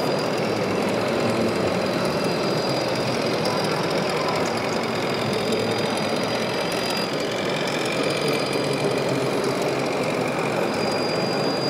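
Simulated diesel engine sound from a radio-controlled Scania R730 truck model's sound module, running steadily while the truck drives.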